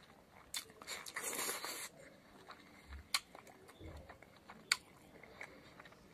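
A man eating pork fat and rice by hand, close-miked: soft wet chewing and mouth clicks, with a longer, noisier smacking sound about a second in.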